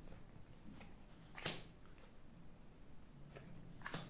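Playing cards being handled and dealt onto a table: a few short, faint card snaps, the loudest about a second and a half in and two more near the end.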